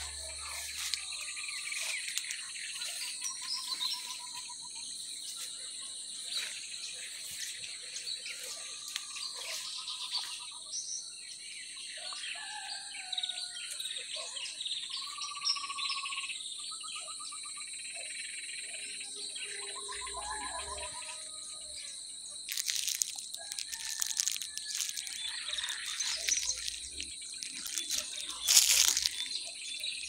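Insects keep up a steady high-pitched drone while birds call with short repeated trills. Several sharp knocks and rustles come in during the last third, the loudest shortly before the end.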